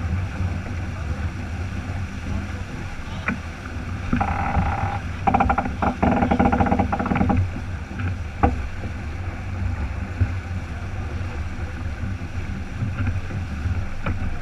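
Wind buffeting the microphone and water rushing along the hull of a sailboat under way, a steady low rumble. A few sharp clicks and a louder, busier stretch of about three seconds near the middle break through it.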